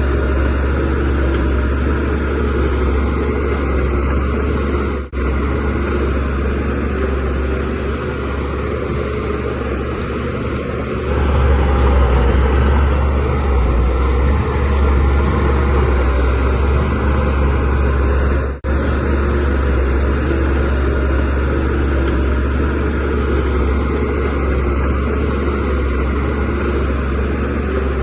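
Shantui DH17C3Pro bulldozer's diesel engine running steadily under work, louder from about eleven seconds in, with the sound cutting out for an instant twice.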